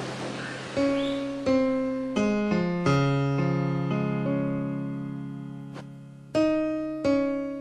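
Background piano music: single notes and chords struck one after another, each left to ring and fade. A run of them begins about a second in, the last chord is held through a long fade, and more chords come near the end.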